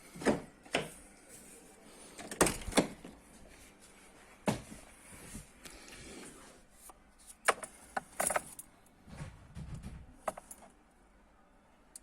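Scattered sharp clicks and knocks, about eight of them, with no engine running; keys and handling noises.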